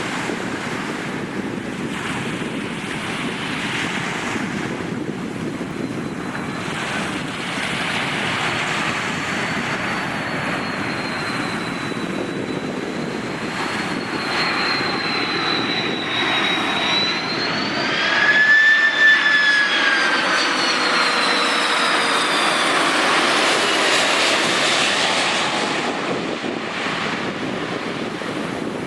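Airbus A330-300 airliner on landing approach passing close by: the steady rush of its twin turbofan engines with a high fan whine. The noise grows to its loudest about two-thirds of the way through, where the whine swings up and then down in pitch, and then it eases off.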